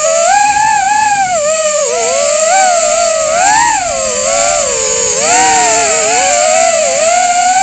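Emax Tinyhawk 2 Freestyle micro FPV drone's brushless motors whining, recorded by the onboard camera. The pitch swoops up and down over and over as the throttle changes in flight.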